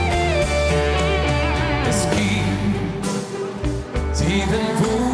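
Live band playing an instrumental interlude of a schlager song, with a guitar carrying the melody over a steady bass line.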